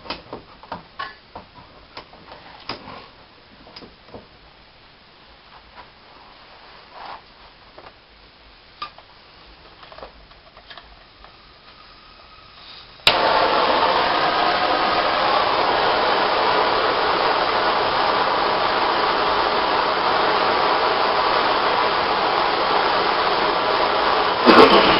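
Faint clicks and knocks of a cable being set in a vise, then about halfway through a loud, steady rushing starts suddenly and keeps going: a heating tool playing on a crimped battery-cable lug to melt solder into it.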